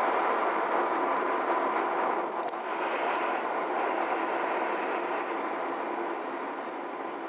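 Road and tyre noise inside a moving car's cabin: a steady rushing hum that fades gradually from about two seconds in as the car slows for a red light ahead.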